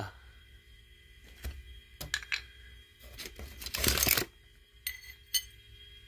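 Old engine timing-chain parts (metal chain guides and the chain) being set down by hand on a concrete floor: a few light metal clinks and knocks, with a longer rattling scrape near the middle.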